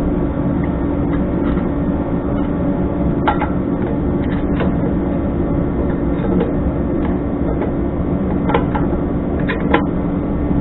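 Steady droning hum of a running shop heater. A few light metal clicks and knocks sound over it as a small 2500 lb winch is handled and seated on its bumper mount.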